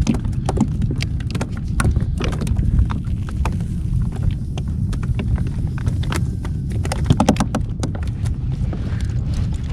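Wind rumbling on the microphone on a kayak at sea, with a steady scatter of small sharp clicks and knocks from fishing tackle and a Sabiki rig being handled by hand.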